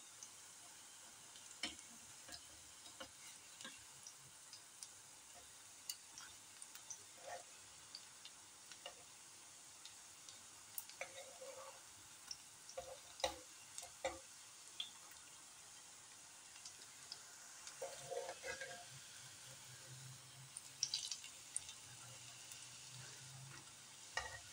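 Onion and egg fritters shallow-frying in oil in a cast iron pan: a faint, steady sizzle with scattered short clicks and taps as a metal spatula turns them.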